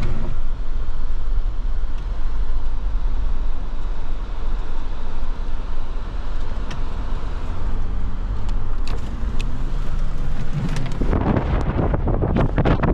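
Jeep Wrangler JK driving through deep snow, heard from inside the cabin: a steady low engine and tyre rumble. About eleven seconds in, a loud crackling rush of wind on the microphone sets in over it.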